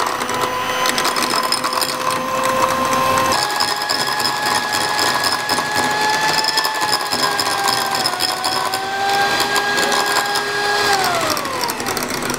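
Electric hand mixer running on high, its twin beaters whipping cream in a glass bowl: a steady motor whine with a clatter of beaters against the glass. The pitch steps lower about three seconds in, wavers, then slides down near the end as the mixer winds down, the cream whipped to soft peaks.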